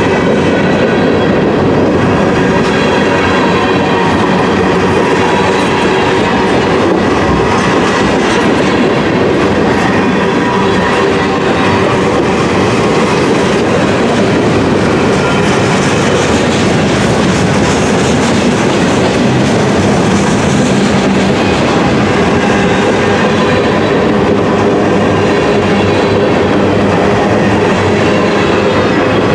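Freight train of covered hopper cars rolling past close by: a loud, steady clatter of steel wheels on the rails.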